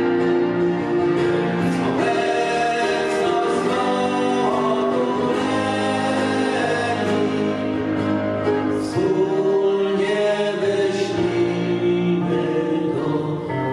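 Live song: a man singing, accompanied on acoustic guitar, with a backing voice and keyboard filling out held chords.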